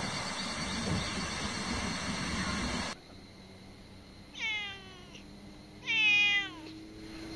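Calico cat meowing twice, each meow falling in pitch, the second louder than the first. Before that, a steady rushing noise stops suddenly about three seconds in.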